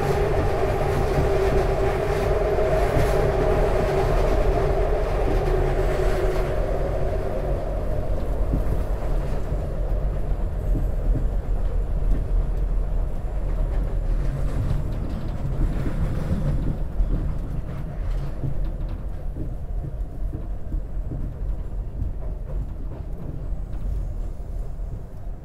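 SEPTA Market-Frankford Line el train heard from inside the car, running on the elevated track with a steady rumble and a whine that fades out after several seconds. The ride grows quieter toward the end as the train slows into the station.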